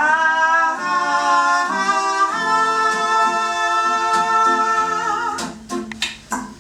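A man's voice sings wordlessly over acoustic guitar. It slides up into a long held high note, moves to a second long note that wavers at its end, and then stops. The guitar strums on alone near the end.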